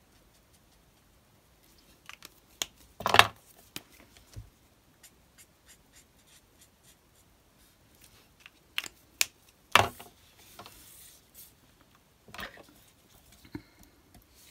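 Scattered sharp clicks and taps of alcohol markers and small craft tools being handled and set down on a craft mat, the loudest about three seconds in and a cluster near ten seconds, with a brief paper rustle just after.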